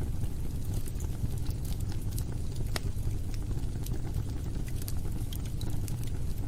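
Wood fire crackling in a fireplace: irregular sharp pops and snaps scattered over a steady low rumble of the burning fire.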